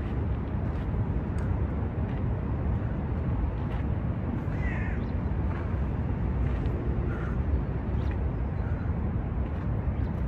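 Steady low outdoor rumble of wind and city traffic, with a crow cawing once a little before the middle and faint scuffs of feet on gravel.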